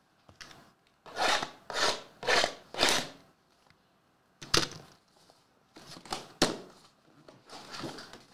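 Cardboard box packaging and sealed trading-card packs being handled and slid against each other. About a second in come four quick swishes about half a second apart, followed by a couple of sharp taps and more scattered rustling.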